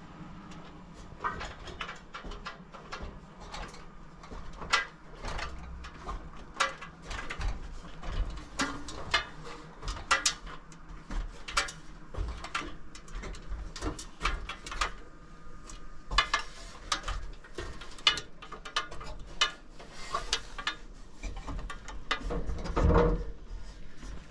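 Irregular clicks and knocks of a person climbing up onto a profiled-steel-sheet roof, with one heavier knock near the end.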